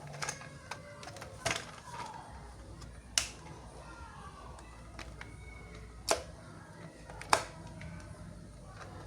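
Toys and plastic packaging being handled during an unboxing: scattered sharp clicks and taps, five of them louder, with faint wavering tones underneath.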